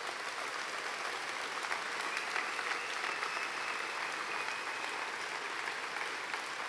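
Crowd applauding steadily after a line of a speech.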